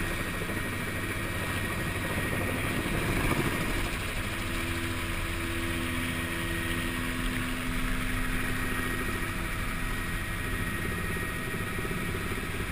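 Helicopter running steadily, its engine and rotor noise heard from inside the cabin, with a thin steady high whine over it.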